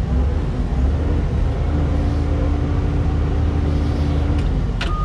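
Doosan DX140W wheeled excavator's diesel engine running steadily, heard from inside the cab as a strong low hum, with a faint steady whine in the middle. Near the end a click and the start of a high, even electronic warning beep.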